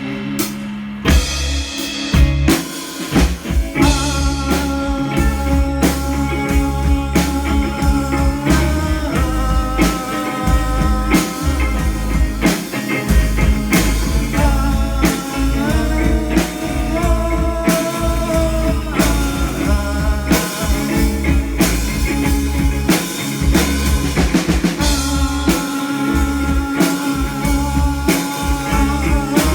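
Live rock band playing an instrumental break: a drum kit keeps a steady beat under bass and guitar. A line of long held notes joins above them about four seconds in.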